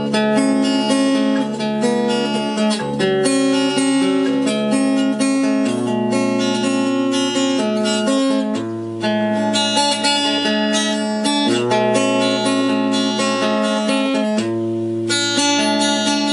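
Acoustic guitar played through the Ciclotron Max Prime H-1400I amplifier head as a test of the repaired amp. Chords are picked and strummed, and the bass note changes about every three seconds.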